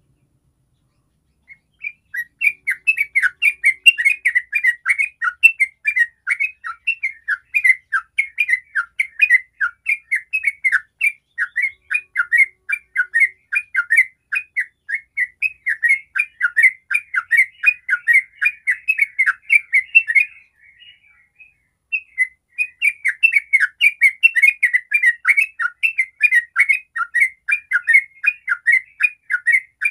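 Yellow-vented bulbul singing a long, fast run of chirpy notes, about five a second: the continuous 'ropel' song. It starts about two seconds in, breaks off briefly about two-thirds of the way through, then carries on.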